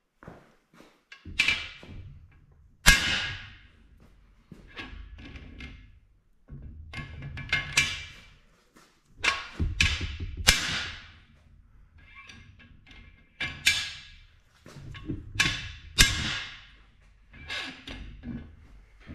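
Hammer blows on a cam bearing installer bar, driving a new Dura-Bond cam bearing into the cam bore of an aluminum LS 5.3 block. About fifteen sharp, irregularly spaced metal strikes, each ringing briefly; two land much harder than the rest, one about three seconds in and one late on.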